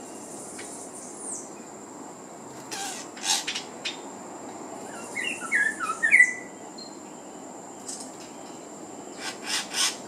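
Small bird attacking its reflection in a car's side window: short bursts of wing-flapping and beak taps against the glass around 3 seconds in and again near the end, with a quick run of sharp chirps about 5 to 6 seconds in.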